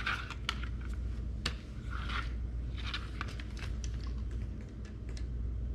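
Scattered small clicks and short rustling scrapes of hands working the oil-pump fitting out of an outboard's lower gear case drain hole and fitting the drain screw, over a steady low hum.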